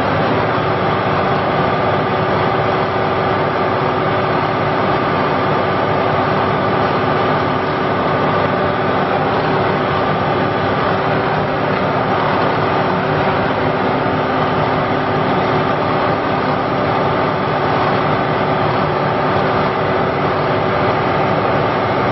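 Cummins diesel engine of an Ingersoll Rand Blaw-Knox PF-5510 asphalt paver running steadily at a constant speed.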